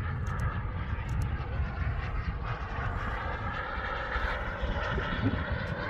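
KingTech K102 turbine of a Boomerang Ranger RC jet running in flight, a steady whine that drifts slightly up and down in pitch, over a low irregular rumble.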